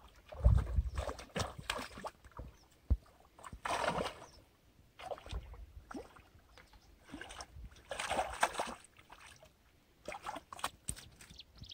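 Hooked rohu carp thrashing and splashing at the water's surface in short irregular bursts as it is hauled in on a hand line, the biggest splashes about four and eight seconds in. A low thump comes about half a second in.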